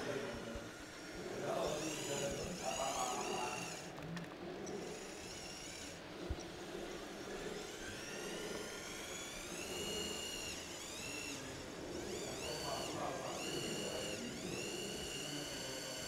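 Small electric motors and gearboxes of radio-controlled model trucks and construction machines whining, the pitch rising and falling as the models speed up and slow down. There is one short knock a little over six seconds in.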